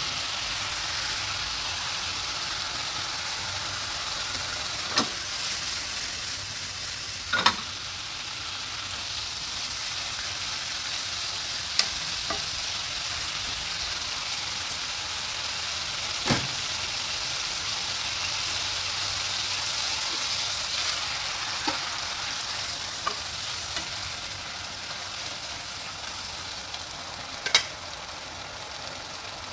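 Bitter gourd stir-fry sizzling in a non-stick frying pan, a steady hiss, with a spatula stirring the food and a handful of sharp taps against the pan, the loudest near the end.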